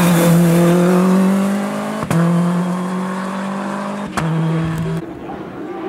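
Suzuki Swift rally car engine under hard acceleration, its pitch rising steadily, with two sharp breaks about two and four seconds in. After about five seconds it gives way to a quieter, more distant rally car engine.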